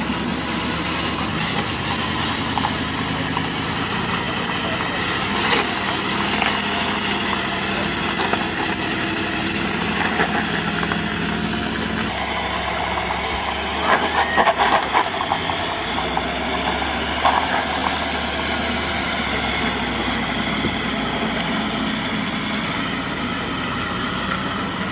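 A Land Rover 4x4's engine running steadily under load as the vehicle crawls up a steep rock slope. A few brief louder sounds break in about halfway through.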